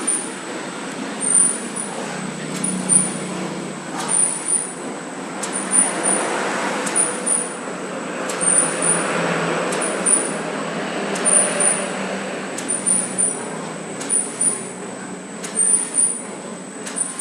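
A plastic-bag cutting machine is running through its cycle: a steady mechanical hum with a sharp double tick repeating about once a second, and occasional knocks. The running noise grows louder through the middle.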